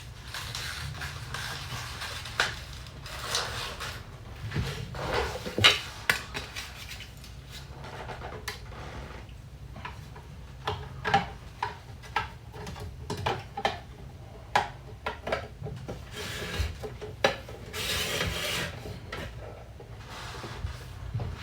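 Kitchen handling sounds: a string of light clicks and taps of dishes and utensils, with a stretch of rubbing or rustling about three-quarters of the way through, over a low steady hum.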